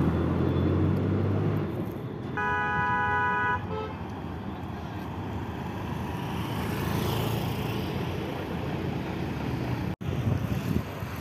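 Highway traffic passing: a vehicle engine rumbles at first. A vehicle horn then sounds once for about a second, and tyre and road noise of passing vehicles follows.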